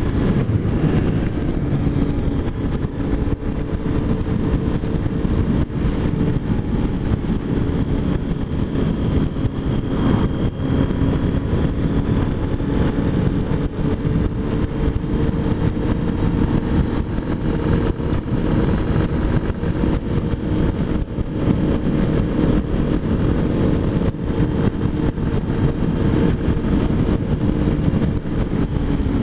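Motorcycle cruising at a steady speed: heavy wind buffeting on the microphone, with the engine's even drone underneath, its pitch drifting only slightly.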